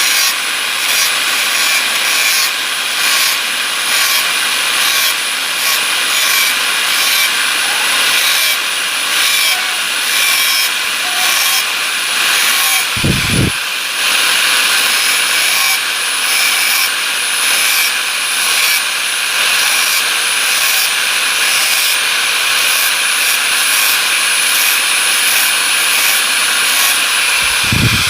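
Angle grinder with a thin disc running at a steady high whine while grinding the teeth of a handsaw to sharpen it, the grinding noise pulsing unevenly about once a second as it works along the teeth. Two low thumps, one about halfway through and one at the end.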